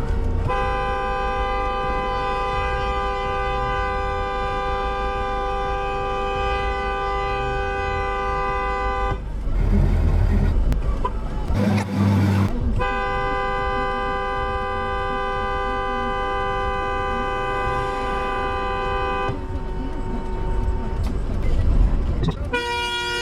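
Car horn held down in long, steady two-note blasts: one of about nine seconds, then after a short break another of about six and a half seconds. A fainter horn note follows, and a new blast starts near the end. Prolonged angry honking at a car holding up traffic.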